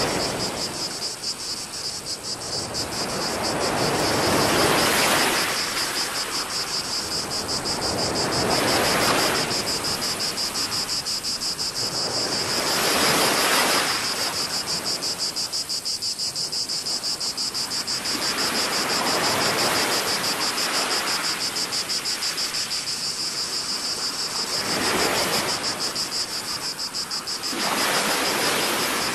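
Small waves washing in and draining away about every four to five seconds, over a steady high-pitched buzzing chorus of cicadas.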